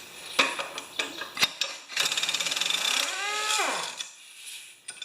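Hand ratchet clicking rapidly for about a second as it turns the lawn mower's blade bolt, with scattered metal taps and knocks around it, then a short sound falling in pitch.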